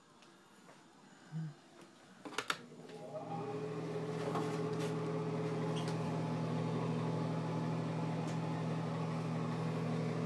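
A couple of sharp clicks about two and a half seconds in, then a bathroom exhaust fan spins up over about a second and runs with a steady, humming drone.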